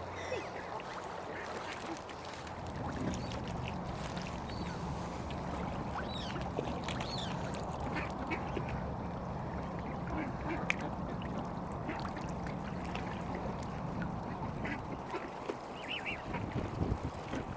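Mallard ducks quacking in short scattered calls, over a steady low hum.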